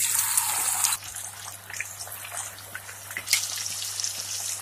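Marinated chicken pieces dropped into hot oil in a kadai: a loud burst of sizzling for about a second, then steady crackling deep-frying that swells again near the end. The oil is well heated, so the pieces sizzle at once.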